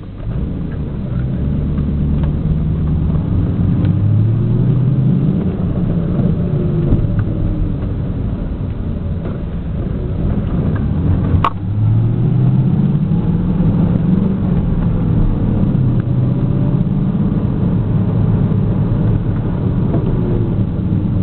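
2000 Ford Mustang GT's 4.6-litre V8 heard from inside the moving car, its note rising and falling as the car accelerates and eases off. A single sharp click about halfway through.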